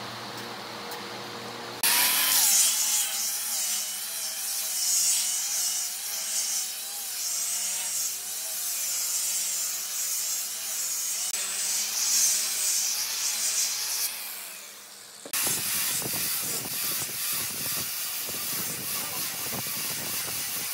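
Angle grinder with a sanding disc abrading the edge of a solid-wood tabletop: it starts about two seconds in, its motor pitch wavering as the disc is pressed against the wood. Near the end, after a brief dip, it gives way abruptly to another stretch of similar sanding.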